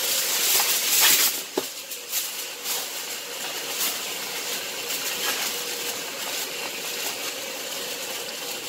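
Aluminum foil pulled off the roll and torn from the box, loudest in the first second or so, then crinkled and crimped down around a cast iron skillet, over a steady hiss.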